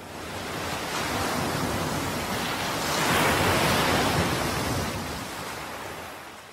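A rush of surf like a single ocean wave, swelling to a peak about three seconds in and then fading away.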